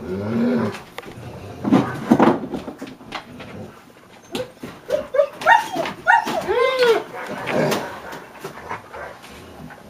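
Dogs vocalising during a tug-of-war game over a sock: short rising-and-falling yips and whines, with a quick run of them between about four and a half and seven seconds in.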